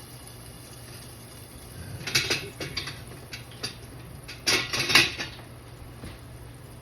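Kitchen utensils and dishes clattering: a burst of clinks and knocks about two seconds in, and a louder one about four and a half seconds in.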